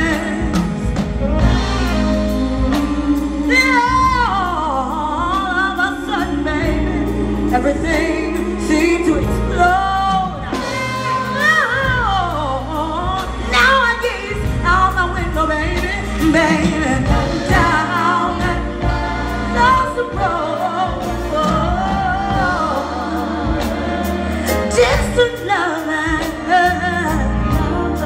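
Live soul band performance: a woman singing long, sliding, ornamented vocal lines over keyboard, bass guitar and drums.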